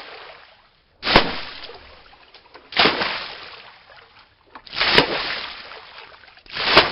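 Splashing water sound effect: four sudden splashes about two seconds apart, each trailing off in a fading hiss.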